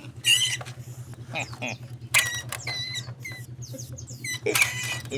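A caught sewer rat squealing in repeated short, high-pitched bursts, the squeals of a trapped rat, over a steady low hum.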